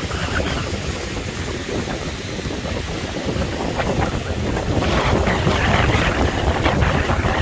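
Strong gusting wind buffeting the microphone with a heavy low rumble, over a steady hiss of rain and wet traffic; the wind grows louder about five seconds in.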